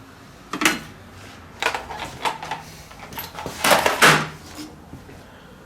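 Scrapped computer circuit boards being handled and moved: a few short clacks and rustles, the loudest about four seconds in.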